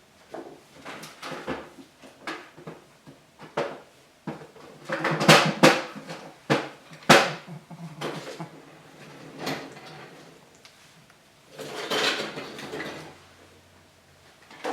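Rummaging through drawers and supplies: a run of irregular knocks and clatters, loudest about five to seven seconds in, with a longer scraping rattle near the end.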